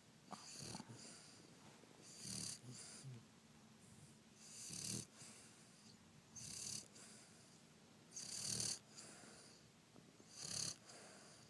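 Boston terrier snoring, one raspy snore about every two seconds, six in all.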